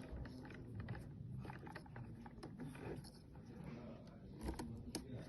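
Faint handling noise: electrical wires being pushed into WAGO 221 lever connectors, with small plastic clicks as the orange levers are raised and snapped shut, scattered irregularly through the stretch.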